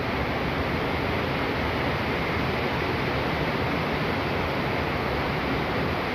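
Heavy rain pouring down, a steady, even hiss of water.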